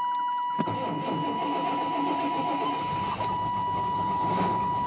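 Cold start of an old Chevy 2500 4x4 pickup's engine: a sharp click about half a second in, then the engine cranks, catches and runs, starting up pretty well. A steady high electronic tone sounds throughout.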